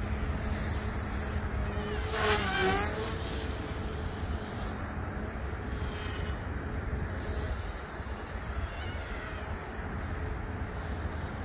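OMP Hobby M2 V2 electric RC helicopter flying, its motor and rotors making a high, insect-like whine. The whine is loudest about two seconds in, its pitch dipping and recovering as the helicopter passes close, then goes on fainter, over a low wind rumble on the microphone.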